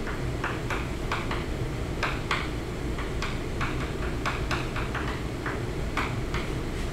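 Chalk clicking against a blackboard as words are written: an irregular run of short taps, about three a second, over a steady low hum.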